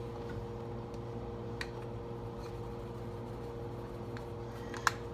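Quiet kitchen room tone: a steady low electrical hum with a couple of faint clicks as a seasoning container is handled over a steel saucepan.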